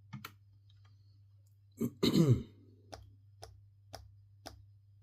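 Carbon-fibre RC car pod plate being tapped on a flat surface and rocking, giving short ticks about twice a second in the second half: the tapping noise of a twisted plate that does not sit flat. About two seconds in, a louder throat-clearing sound from a person.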